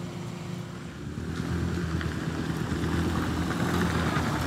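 Engines of vehicles climbing a steep dirt hill, a motorcycle among them, growing louder about a second in as they come up close.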